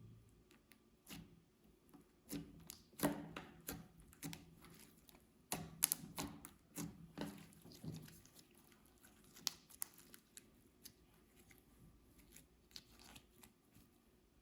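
Hands stretching and pressing glittery slime: a run of sticky pops, clicks and crackles, thickest in the first half and thinning out toward the end.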